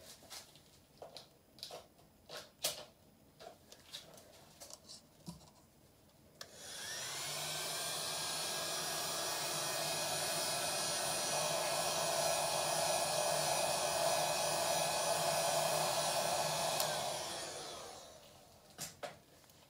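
A few light taps and clicks, then a heat gun switches on about six seconds in. Its fan spins up with a rising whine and runs steadily for about ten seconds while it pops air bubbles in freshly poured epoxy resin, then it switches off and winds down.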